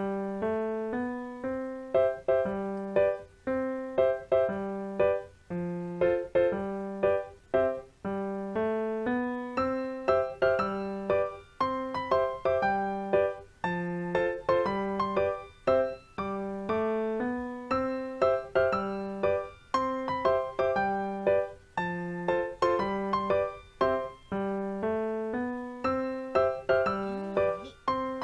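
Background piano music: a gentle run of struck notes, each fading away, over a low note repeating about once a second.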